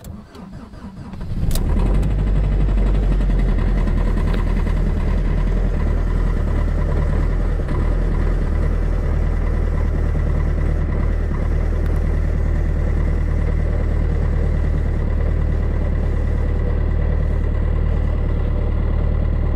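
Fiat Punto MK2 1.3 JTD four-cylinder diesel cold-starting at −26 °C. It cranks briefly, catches about a second and a half in, then settles into a steady cold idle at around 1,000 rpm.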